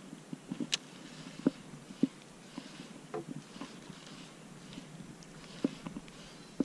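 Abu Garcia Black Max baitcasting reel and rod being handled while a topwater lure is worked: scattered light clicks and taps, with a sharp one under a second in, over a faint hiss.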